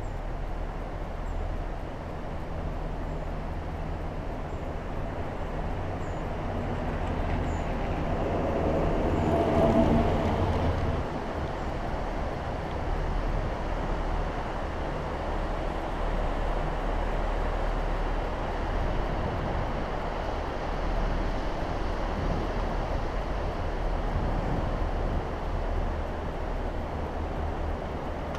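Gondola cabin running along its haul cable, a steady hum and rumble heard from inside the cabin. About eight to eleven seconds in it grows louder with a rumbling whine as the cabin rolls over the rollers of a support tower.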